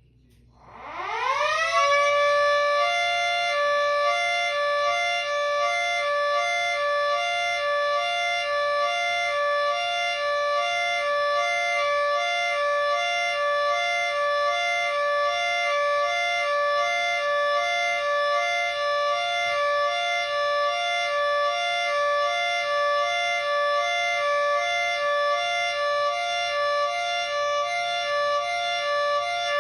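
Miniature Federal Signal 2T22A-style dual-tone siren spinning up about a second in, its pitch rising quickly to two steady notes that it holds without change: a steady alert signal. Near the end the pitch starts to drop as it begins to wind down.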